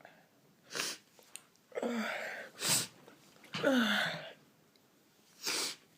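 A woman's induced sneezing: a quick run of sneezes and sharp breaths, about five loud bursts in six seconds. Two of them are voiced and fall in pitch.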